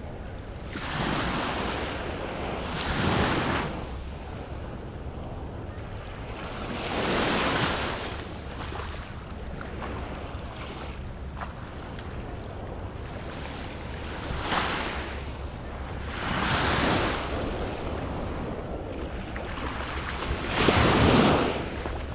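Small waves breaking and washing up a sandy beach, a wash swelling and fading every few seconds, about six in all, with a steady rumble of wind on the microphone underneath.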